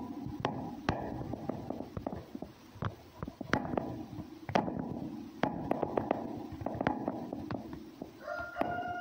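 Red fox with its nose pressed into a gap at the base of a wire fence, making soft, irregular snuffling and rustling noises broken by sharp clicks. Near the end a thin, steady whine begins.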